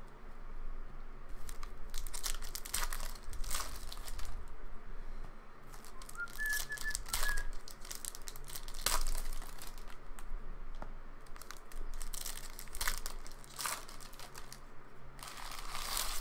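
Foil wrappers of Panini Mosaic football card packs crinkling and tearing as they are ripped open by hand, in irregular rustles and sharp crackles.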